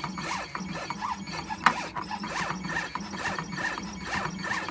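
Creation Kingcut CB630H vinyl cutter cutting vinyl: its drive motors whine in quick rising-and-falling sweeps, about two a second, as the blade carriage and roller move back and forth, with sharp clicks in between.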